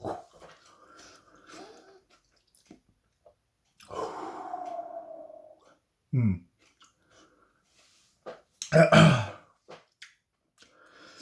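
A man's throat and breath sounds as he takes the burn of a hot chilli pepper he has just eaten: a drawn-out vocal sound falling in pitch about four seconds in, a short low gulp-like sound about two seconds later, and a loud sudden throat sound about nine seconds in, the loudest of them.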